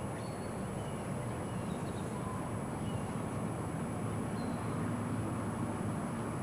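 Steady outdoor background noise, mostly a low rumble, with faint short high chirps here and there and no distinct hit or thump.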